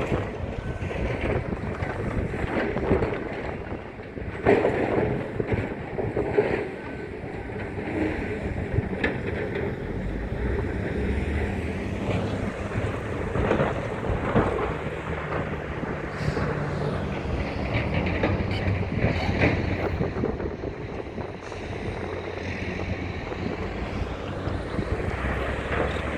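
Hitachi 870 excavator's diesel engine working under load, with several knocks and scrapes of rock and metal as it digs, and wind on the microphone.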